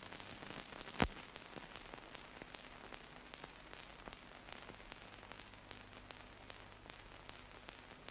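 Faint hiss with frequent small crackles and one louder pop about a second in, over a low steady hum: the surface noise of an archival film transfer with no recorded sound.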